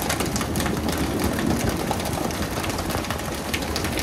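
Fishing boat engine running steadily, with frequent short clicks and knocks over it.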